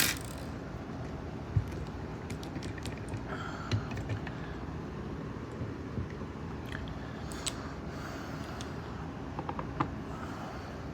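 Scattered small metallic clicks and taps of lock picks and a tension wrench being handled against two just-opened American 1100 padlocks, over steady low background noise.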